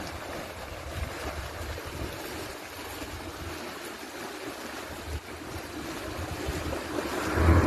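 Water rushing and churning, with wind rumbling on the microphone, growing louder near the end.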